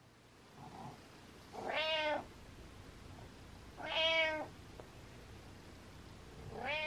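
Domestic cat meowing three times, about two seconds apart, each meow short.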